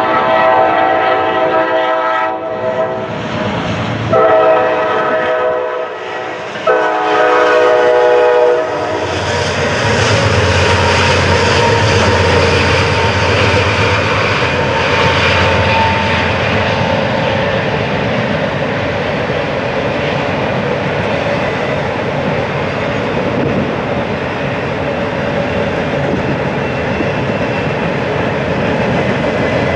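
Locomotive air horn sounding three blasts, a long one of about four seconds and two of about two seconds. About nine seconds in, the train passes close by with a steady rush of engine rumble and wheel noise.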